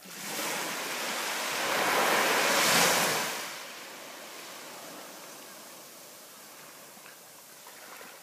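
Small sea waves breaking at the shore and washing up a sandy beach: a rushing hiss that swells to its loudest about three seconds in, then eases to a softer wash as the water draws back.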